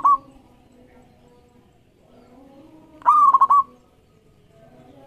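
Zebra dove (perkutut) cooing its song. Each phrase is a clear high note followed by a quick stutter of three or four short notes. One phrase ends right at the start and a full phrase comes about three seconds in.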